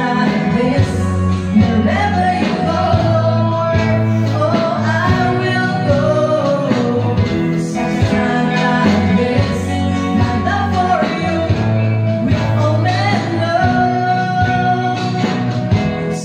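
Two women singing a gospel song into microphones through a PA, with band accompaniment that includes electric guitar and a steady bass line.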